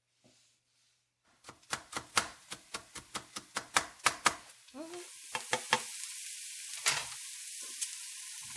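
A quick run of sharp clicks and knocks, about five a second, followed about halfway through by food sizzling steadily as it fries in hot oil.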